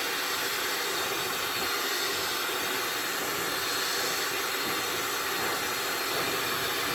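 Gococo hair dryer running steadily on its hot setting: a constant rush of blown air.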